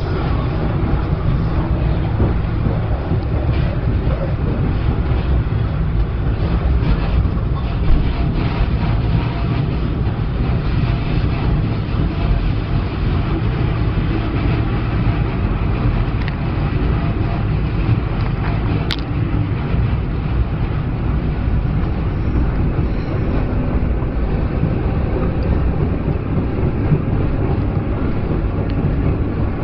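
Beovoz commuter train running on the underground line: a steady, low rumble that hardly changes, with one sharp click a little past the middle.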